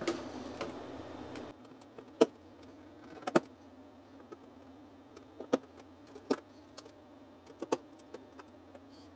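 Sharp plastic clicks and taps, about half a dozen spread out over several seconds, as gooseneck grow lights are snapped into the plastic humidity domes of seed trays, with the power cords rattling lightly between them. A steady background hum cuts off about a second and a half in.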